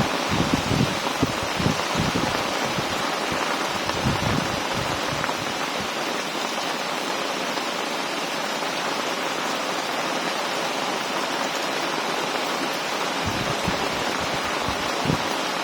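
Heavy rain pouring steadily. Irregular low thumps of wind buffet the microphone in the first few seconds and again near the end.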